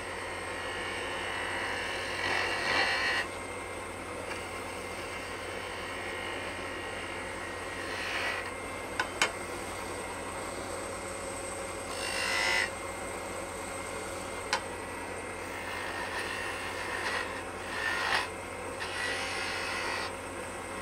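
Wood lathe running with a steady motor hum while a turning tool takes light cuts on a spinning maple bottle-stopper blank, giving several short scraping hisses of a second or less, plus a couple of sharp clicks.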